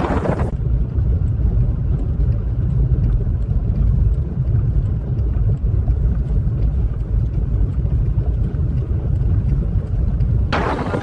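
A vehicle's steady low rumble. It is framed by short stretches of hissing wind noise, one in the first half-second and another starting near the end.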